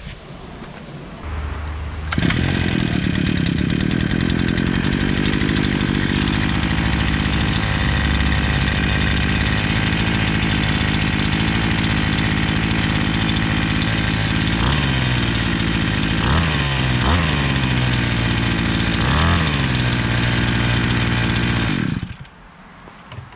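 Riwall RPB 517 brushcutter's small two-stroke petrol engine running steadily, with its speed dipping briefly a few times in the second half, then shut off about a second before the end.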